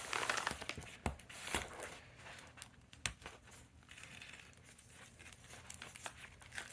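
Packaging crinkling and rustling as items are unpacked and handled, with a few sharp clicks and knocks. The handling is busiest in the first two seconds, then quieter and more scattered.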